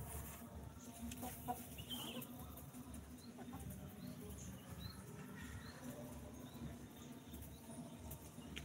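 Free-range chickens foraging, with soft, faint clucks and a few faint short high chirps over a low steady background.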